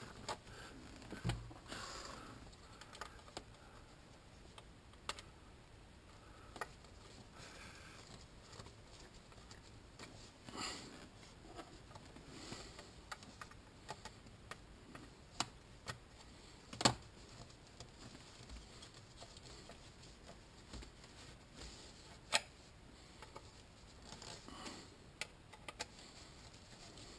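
Power window switches and small plastic parts being handled: scattered light clicks and taps, with one sharper click about two-thirds of the way through.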